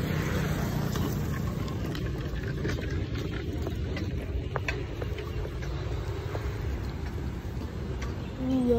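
Steady low outdoor rumble with a few faint clicks; near the end a girl starts humming a wavering tune.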